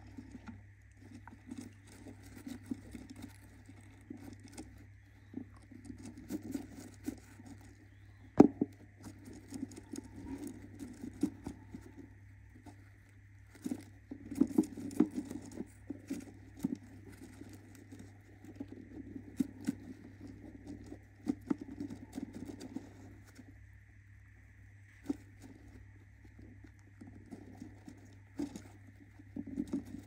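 A budgie hen scratching and shuffling on the wooden floor of her nest box and among the shredded paper bedding as she shifts over her eggs, in irregular bursts with scattered sharp taps and one louder knock about eight seconds in. A faint steady hum runs underneath.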